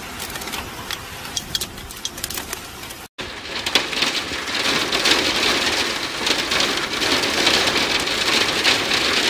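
Hail and rain hitting a window and its ledge: scattered sharp ticks of hailstones over a steady patter. After a cut about three seconds in, a louder, dense hiss of hail and rain pelting the glass.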